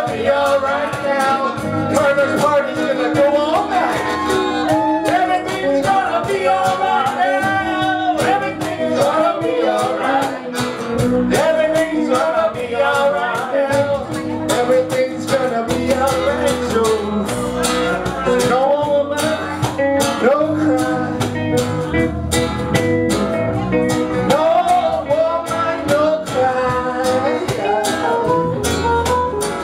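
A live band playing a slow reggae song, with saxophone, acoustic and electric guitars, keyboard, congas and singing voices.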